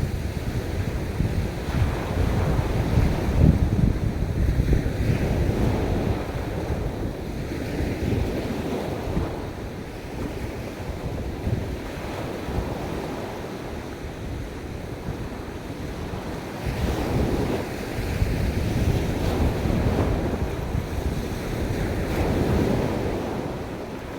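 Ocean waves washing onto a beach, a continuous roar that swells and eases in slow surges, with wind rumbling on the microphone.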